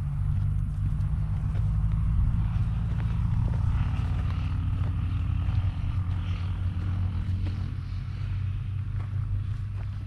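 A motor vehicle's engine running close by: a steady low hum that grows louder over the first couple of seconds and fades in the last two.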